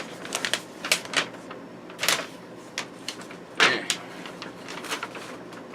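Items and packaging being handled by hand: scattered clicks, light knocks and a few short rustles, with the louder rustles about two and three and a half seconds in.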